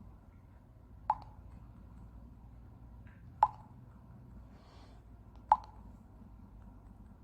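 WhatsApp's message-sent notification sound: a short, sharp pop, heard three times about two seconds apart.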